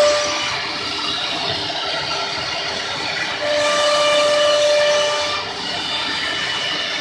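Spindles of a three-head CNC router running and cutting, a steady high whine over a hiss, growing louder for about two seconds midway.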